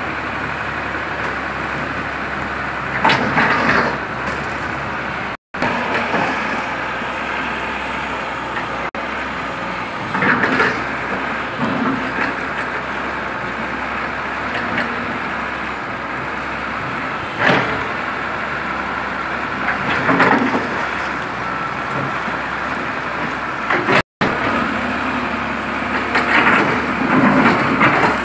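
Hyundai excavator's diesel engine running steadily while its bucket breaks through brick and concrete walls, with several bursts of crunching and falling rubble.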